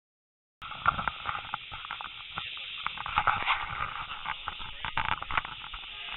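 Steam locomotive heard from an open carriage window: a steady hiss with many irregular knocks and clanks.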